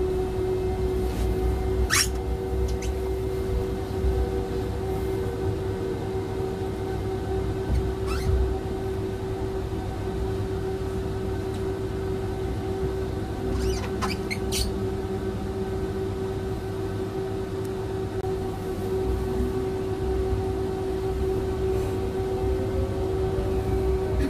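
Tram running along its track, heard from inside the car: a steady hum over a low rumble of wheels on rail, with a few sharp clicks. Near the end a whine starts to rise in pitch.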